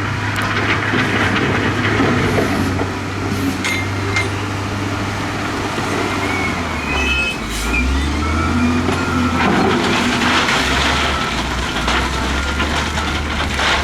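Diesel engines of heavy earthmoving machinery running under load, their note shifting partway through, with metallic clanks and knocks and faint reversing beeps.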